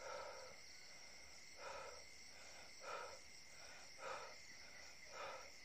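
Faint steady chirring of crickets and other insects. A soft, low call repeats about once every second.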